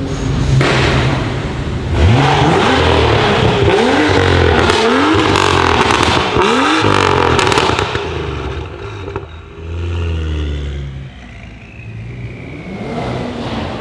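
BMW M2 F87's turbocharged straight-six through a decatted Fi exhaust, revved hard in about five quick blips with crackles and pops as the revs drop, then settling to a lower, quieter running.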